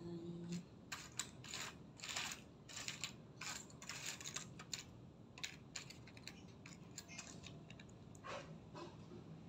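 Small hard pieces of cut-up CD clicking and clattering against each other as they are picked through by hand, in quick irregular bursts that are densest in the first half and thin out toward the end.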